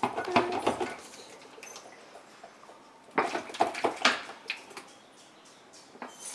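Plastic soda bottles being handled: scattered knocks, crinkles and short squeaks in two bursts, one right at the start and another about three to four seconds in.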